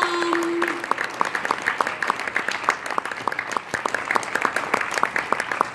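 Audience applause with dense clapping, and a voice holding a cheer in the first second.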